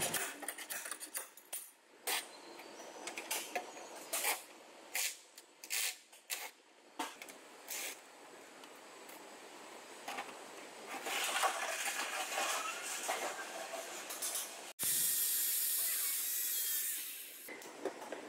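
Hammer striking a steel bar hooked onto a car's dented body panel: a run of sharp metal knocks, irregularly spaced. Later comes a steady hiss lasting about two seconds.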